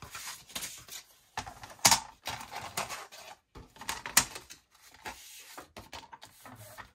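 Paper and a plastic paper trimmer being handled on a cutting mat: sheets of scrapbook paper rustling and sliding, with a scatter of sharp clicks and knocks. Two of the knocks, about 2 s and 4 s in, are louder than the rest.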